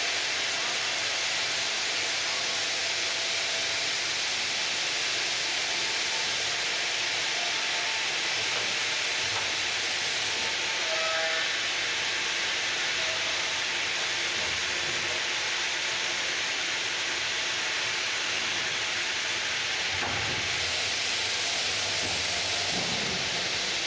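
Ring-system granite cutting machine sawing through granite: a steady, even hiss.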